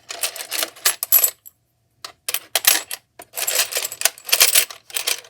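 Planner discs clattering against one another and the mini toy vending machine as they are dropped and shaken into it, in three rattling bursts.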